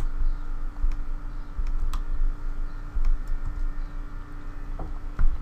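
A few scattered clicks and taps from a computer keyboard and mouse, over a steady low hum.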